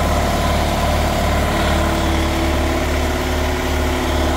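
Large shop air compressor running, loud, with a steady deep pulsing drone.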